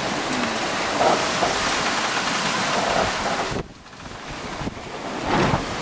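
Wind buffeting the microphone over the rush of water past the hull of a Bavaria 34 sailing yacht reaching at speed through choppy waves. The wind noise cuts out suddenly for about a second a little past halfway, then builds back.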